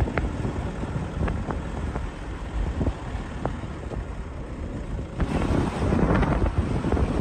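Vehicle driving on a mountain road: a steady engine and road rumble with wind on the microphone and a few light knocks, growing louder about five seconds in.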